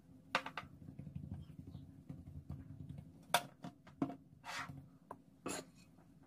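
Hand rubbing salt and pepper into raw beef steaks on a plate: soft rubbing and patting with scattered clicks and taps, over a faint low hum.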